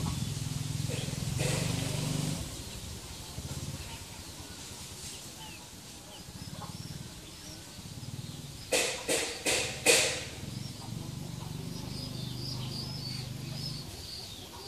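Pigeons cooing low and throaty. About two-thirds of the way through there are four short, loud bursts in quick succession, and small birds chirp faintly behind.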